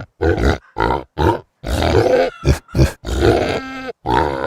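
Pigs grunting in a rapid string of short grunts, with a longer, higher-pitched squealing call a little past the middle.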